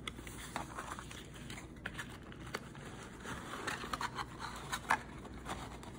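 Quiet handling of a thin white paperboard box as its flaps are opened and unfolded by hand: soft rustling with scattered light taps and clicks of the card.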